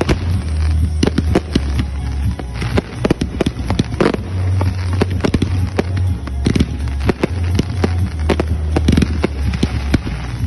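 Aerial firework display: shells bursting in a rapid, irregular run of bangs and pops, several a second, over a steady low rumble.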